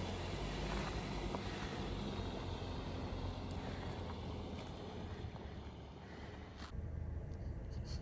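Steady engine hum and road noise heard from inside a moving car, with an abrupt change in the sound about seven seconds in.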